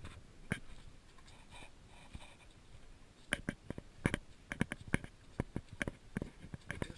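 Handling noise from two hand-held action cameras carried on a walk: sharp, irregular clicks and knocks, sparse at first, then two or three a second from about three seconds in.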